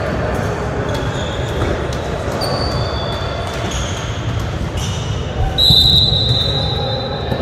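Echoing sports-hall hubbub of indoor volleyball: players' voices, occasional ball thuds, and high squeaks of sneakers on the court floor. The longest and loudest squeak comes about six seconds in.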